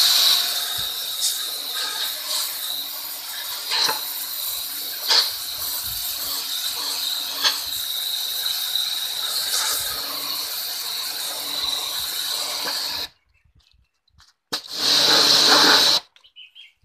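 Electric pressure washer jet spraying hard onto a slate slab: a loud, steady hiss with a few sharp ticks. It cuts off about thirteen seconds in, comes back in one short burst of a second or so, then stops.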